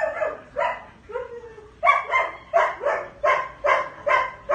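A dog barking: a few spaced barks at first, then a steady run of about three barks a second from about two seconds in.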